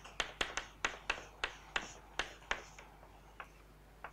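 Chalk tapping and clicking against a blackboard while writing: a quick run of sharp taps, three or four a second, thinning to a couple of single taps after about three seconds.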